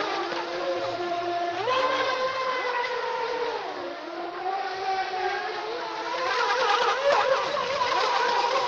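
Brushless electric motors of two Feilun FT011 radio-controlled speedboats whining at speed, a high, racing-car-like sound. The pitch climbs about two seconds in, dips around four seconds and climbs again near seven seconds as the throttle changes.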